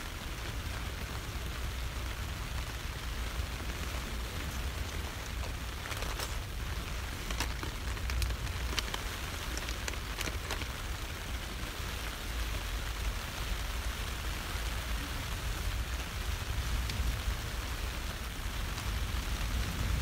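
Steady rain falling on a nylon tent, heard from inside the tent, with a low rumble underneath. A few small clicks sound between about six and ten seconds in.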